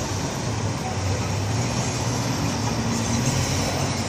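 Motor vehicle engine running close by with road and traffic noise: a steady low drone.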